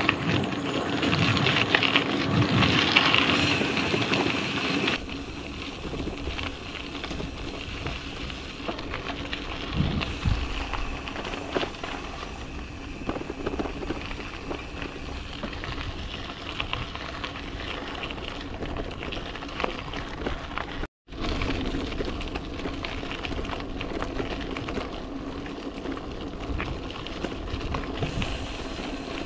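Riding noise from a bicycle on the move: wind rushing over the microphone with tyre and road noise, a steady crackly haze that is louder for the first few seconds and cuts out for an instant about two-thirds of the way in.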